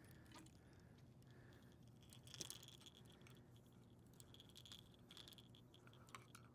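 Near silence, with faint small clicks and rattles of fishing tackle being handled while a rod is rigged, one click a little louder about two and a half seconds in, over a faint steady low hum.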